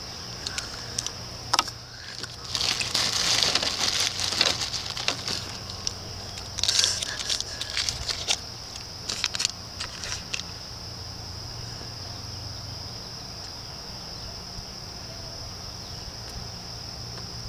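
Chocolate wrappers crinkling and rustling in irregular bursts with small clicks as the chocolates are handled and unwrapped, easing off about ten seconds in. Underneath is a steady high-pitched hum.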